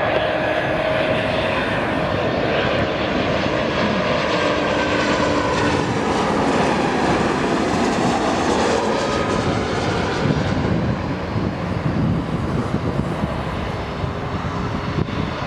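Twin jet engines of a TAP Express Embraer E-Jet airliner on final approach, a steady loud roar with a whine. Some tones slowly bend as it passes overhead, and it grows a little quieter in the last few seconds as the jet flares over the runway.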